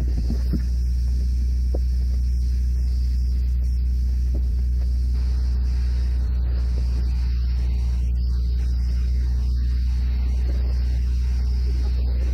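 Steady low machine drone with a faint hiss above it, from equipment running during a spray-foam insulation job.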